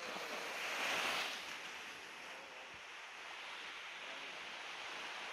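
Surf washing onto a sandy beach: a wave surges up about a second in and falls away, then a steady wash of small waves.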